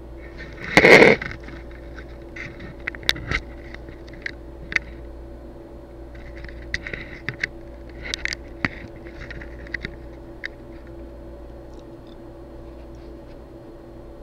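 Light clicks and scrapes of handling at a desk, with one loud rustling scrape about a second in, over a steady low hum.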